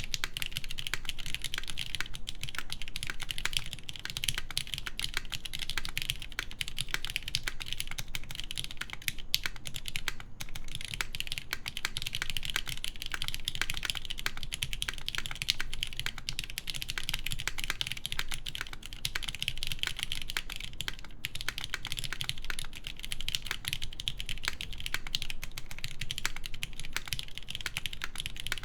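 Steady, continuous typing on a mechanical keyboard with lubed linear Cherry MX Black switches in an aluminum plate, under Cherry G81 keycaps.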